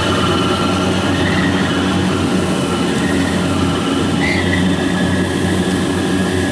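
Kubota combine harvester running steadily while cutting rice: a constant engine drone under a high mechanical whine. The whine rises about four seconds in and then holds.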